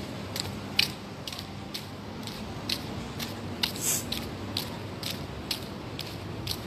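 Footsteps of a person walking briskly on pavement, a short click about twice a second, over a steady low hum.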